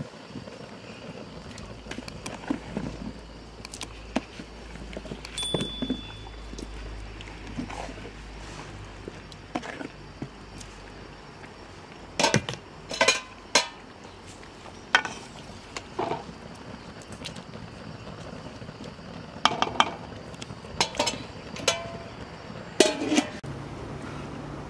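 Dishes and utensils clinking and knocking at irregular intervals, with clusters of sharp clinks about halfway through and again near the end.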